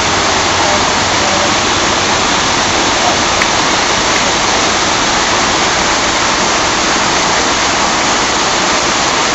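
Waterfall rushing steadily, a loud, even hiss of falling water that does not change.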